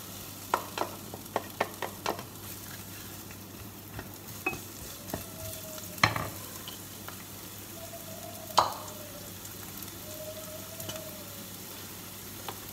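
Chopped onion and garlic sizzling in hot peanut oil in a frying pan, the hiss starting as they go in. A wooden spatula stirs and knocks against the pan throughout, with two louder knocks in the second half.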